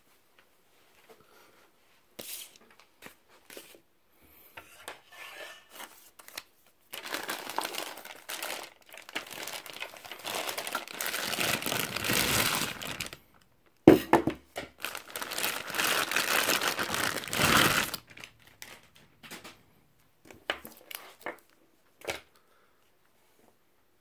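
Packaging crinkling and tearing as a laptop power brick is unwrapped: scattered rustles and clicks, then two long stretches of heavy crinkling, about seven and fourteen seconds in.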